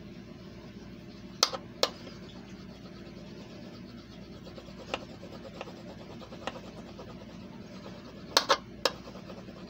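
A burnisher rubbing hard over Press and Peel transfer paper on a sterling silver blank, making faint scraping strokes. Sharp clicks stand out twice: two about a second and a half in, and three close together near the end. A steady low hum runs under it all.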